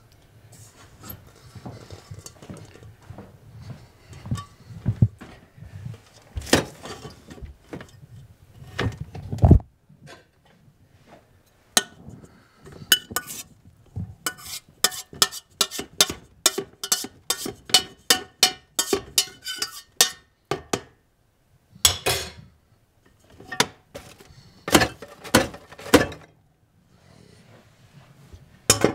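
Stainless steel pot being scraped out with a spoon: a fast, even run of metal scrapes and taps, about three a second, with clatter and knocks of the pot and lid around it and a heavier knock a little before the scraping starts.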